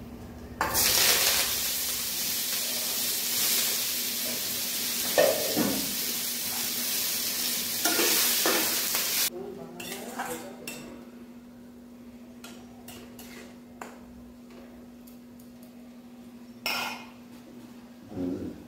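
Cut potato, raw banana and telakucha leaves dropped into hot mustard oil with a radhuni and panch phoron tempering, sizzling loudly for about eight seconds before the sound cuts off abruptly. After that come light clinks of a metal spoon against a pan.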